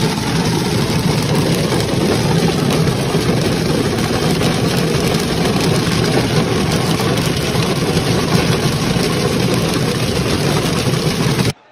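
Hail pelting a car's roof and windshield, a loud, dense, steady clatter heard from inside the car. It cuts off suddenly near the end.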